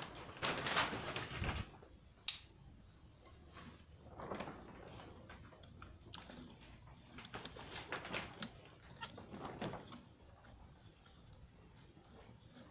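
Hand work on a truck steering rod end: scraping, rustling and light metal clicks of tools and parts being handled while the ball pin is pressed home, in irregular spells with no hammer blows.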